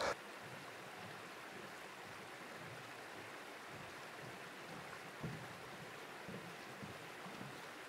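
Steady rush of a flowing stream, with a few faint footfalls on the wooden planks of a footbridge past the middle.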